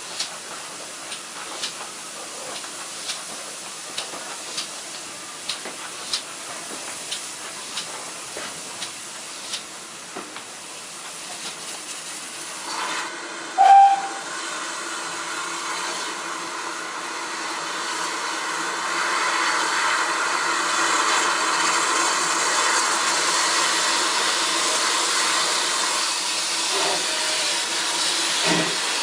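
Steam locomotive, the GWR 1600 class 0-6-0 pannier tank: regular light clicks, a short whistle blip about halfway through, then a loud steady hiss of escaping steam that builds up and holds for about ten seconds.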